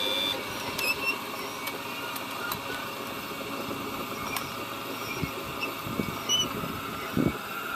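Radio-controlled scale hydraulic excavator running: a steady whir of its small electric hydraulic pump and track motors as it backs out of the way. A high whine cuts off just after the start, and a few short knocks come in the second half.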